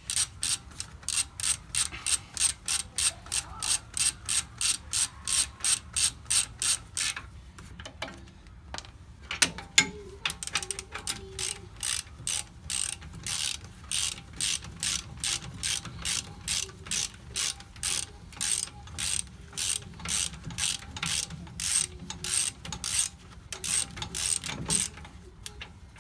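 Hand ratchet wrench clicking as the caliper bracket bolts on a Ford F350's rear brake are wound out: a fast, even run of clicks for about seven seconds, a pause with a couple of knocks, then a slower, steady run of clicks.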